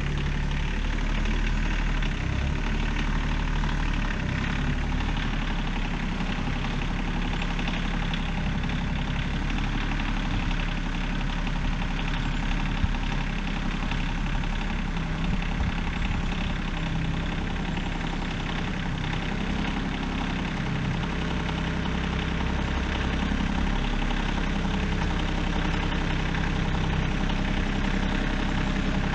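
Small diesel tractor engine running steadily while pulling a subsoiler through the ground to open a shallow trench.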